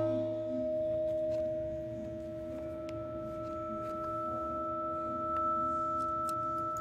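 Sustained pure tones held steady as a droning film-score cue; a higher tone comes in about two and a half seconds in.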